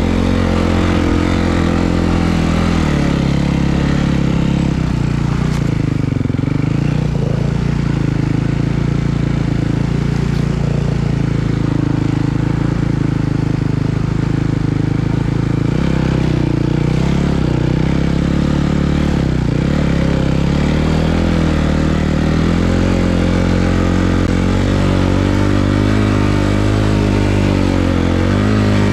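Snowbike engine running while riding through snow, its pitch stepping and drifting up and down with the throttle.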